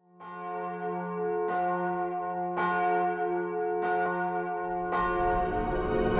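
A church bell tolling five times, about one strike every 1.2 seconds, each strike ringing on into the next. The song's music begins to swell in under the last strike.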